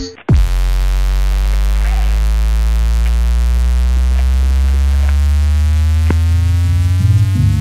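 Electronic music soundtrack: after a brief break, one long synthesizer note is held and slowly rises in pitch, and the beat comes back near the end.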